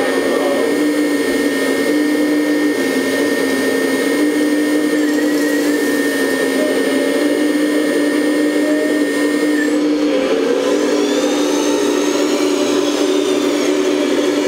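1/14 scale Lesu Aoue ET26L RC hydraulic excavator's electric hydraulic pump whining steadily as the boom and bucket work, its pitch shifting slightly with the load. A second, higher whine joins about ten seconds in.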